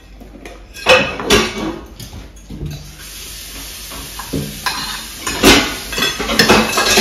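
Cutlery clinking and scraping on dinner plates during a meal, with several sharp clinks.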